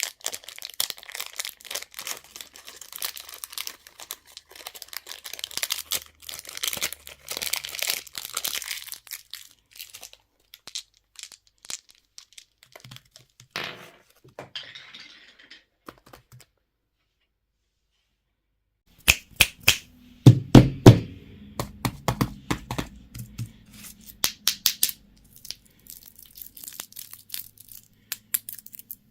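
Plastic candy and toy packaging being crinkled and torn open by hand, a dense crackling at first. After a silent gap past the middle come louder sharp cracks and snaps, with a few dull knocks among them.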